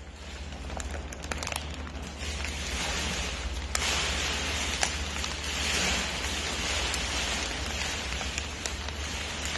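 A raccoon rummaging in a crinkly foil-lined snack bag with its face and paws: steady crinkling and rustling of the packet with sharp crackles now and then, getting louder about two seconds in.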